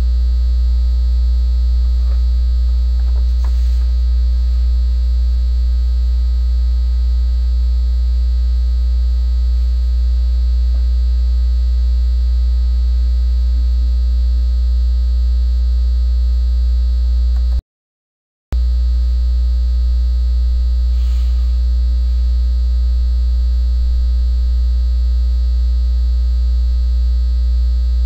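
Loud steady low electrical hum, with fainter steady higher tones over it. It cuts out to silence for about a second roughly two-thirds of the way through, then resumes unchanged.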